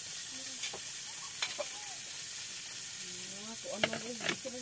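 Pot of misua noodle soup cooking on the stove: a steady hiss, with a few light clicks.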